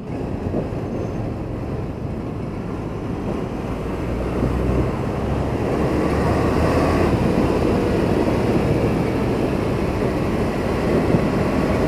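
Wind and road noise while riding a Star 8 Manta electric motorcycle, pulling away from a stop and growing louder about four seconds in as it picks up speed; the electric drive adds no engine sound.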